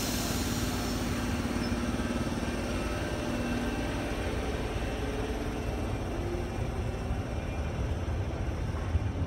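Sydney double-deck electric train pulling out of the station and running along the platform. A steady rumble with a hum from the train, and the hum fades after about three or four seconds.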